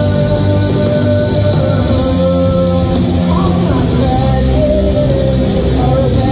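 Live rock band playing loud and steady, with electric guitars holding sustained notes over a driving rhythm.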